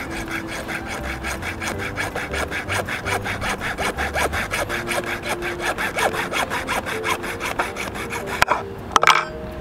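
Junior hacksaw sawing through the plastic tip of an adhesive cartridge to open it, in quick, even back-and-forth strokes. The sawing stops about eight and a half seconds in, followed by a couple of sharp knocks.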